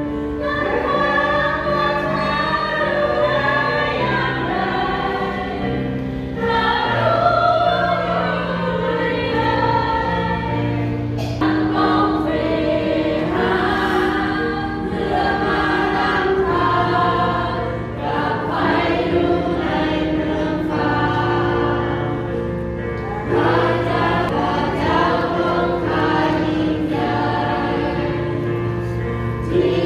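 A church congregation singing a hymn together in Thai, over an accompaniment that holds long, steady bass notes.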